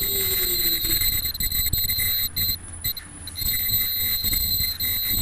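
Automatic KN95 mask-making machine running: a steady low mechanical rumble with light clatter under a constant high-pitched whine.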